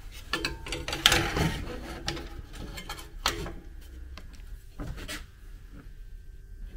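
Knocks and scraping rubs as a fan-cooled transmission cooler with aluminium brackets is handled and pushed into place against steel square tubing. The loudest clatter comes about a second in, with more knocks near three and five seconds.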